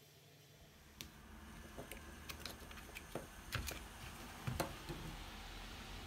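Faint handling noise of small drill parts: a scatter of light clicks and knocks as the motor, trigger switch and battery pack are picked up and fitted together, over a low steady hum.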